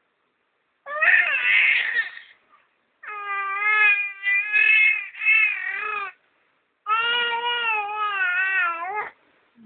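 Baby crying in about five long, high-pitched wails that waver in pitch, with short pauses between them. The first is rougher, more of a squeal.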